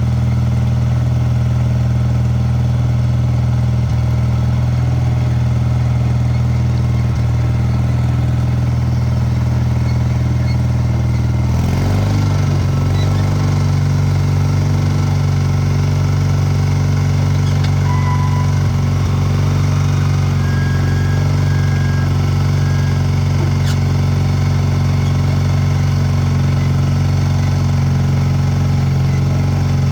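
Gehl 5600 skid steer's engine running steadily. Its note shifts to a slightly different speed about a third of the way in, then holds steady again.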